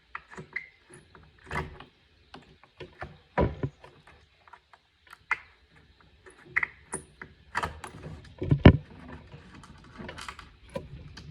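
Scattered clicks, scrapes and knocks of a screwdriver, screws and small metal parts being handled while screws are taken out of an old accordion, with two louder knocks about three and a half and eight and a half seconds in.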